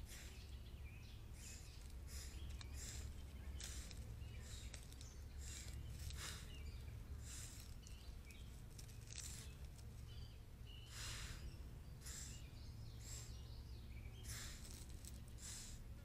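Faint outdoor ambience on a trail camera: a steady low rumble with short, irregular hissy sounds about every half-second to second.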